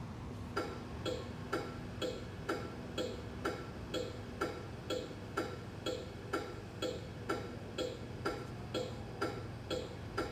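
Scale truck sound module playing a turn-signal blinker: evenly spaced electronic clicks, about two a second, starting just under a second in, over a steady low hum.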